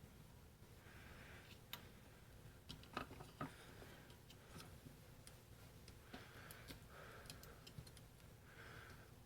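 Near silence broken by a few faint, scattered clicks and ticks, the clearest about three seconds in, in a small room.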